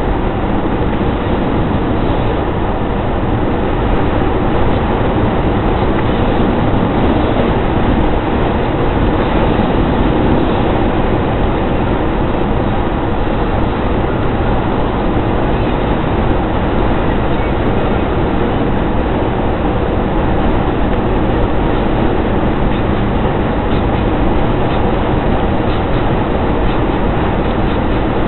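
Steady road and engine noise of a car driving at highway speed, heard from inside the cabin, with a few faint ticks near the end.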